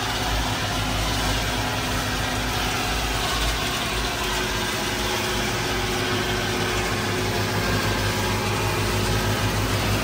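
Tractor engine running steadily with a low hum.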